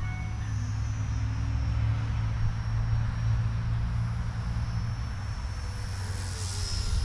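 Blade 200 SRX radio-controlled electric helicopter in flight: a steady rotor buzz with a thin, high whine above it, swelling briefly near the end.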